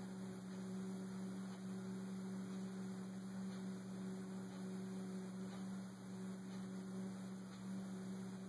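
Steady low electrical hum over faint hiss.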